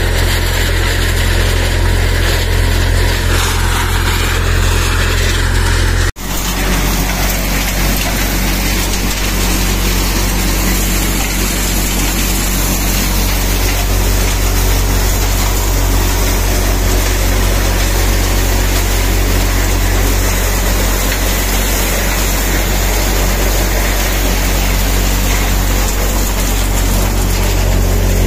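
Tractor-driven four-fan chaff cutter machine running steadily, with a loud, even engine hum. The sound breaks off sharply for an instant a little over six seconds in, then runs on unchanged.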